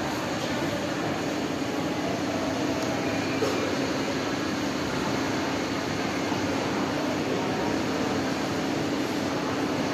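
Shopping-centre atrium ambience: a steady hum of building machinery and ventilation under a faint murmur of distant voices.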